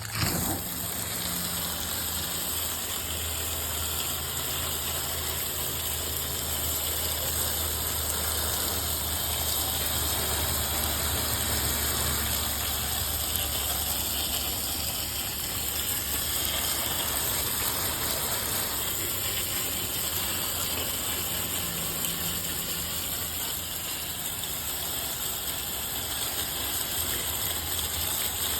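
Water spraying steadily from a hose onto an air conditioner's condenser coils, a continuous hiss over a steady low motor hum.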